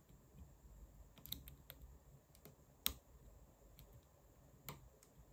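Faint, scattered metallic clicks of a lock pick working the pins of a five-pin Vachette pin-tumbler cylinder under tension, with a sharper click about three seconds in and another near the end.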